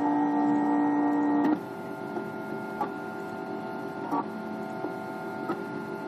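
MakerBot Thing-O-Matic 3D printer's stepper motors whining in steady, pitched tones as the extruder head moves. The pitch jumps to a new note every second or so with each new move, louder for the first second and a half, then quieter.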